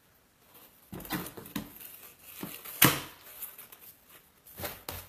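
Craft mesh tubing and supplies being handled on a cutting mat: rustling with a scattering of sharp clicks and taps, the loudest about three seconds in.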